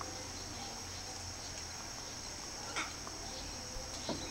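Sulphur-crested cockatoos giving brief harsh calls, one a little under three seconds in and a shorter one near the end, over a steady high-pitched insect drone.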